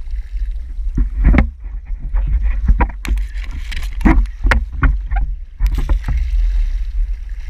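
Water splashing and sharp knocks in quick, irregular succession as a hooked blue marlin thrashes at the surface beside the boat, over a steady low rumble.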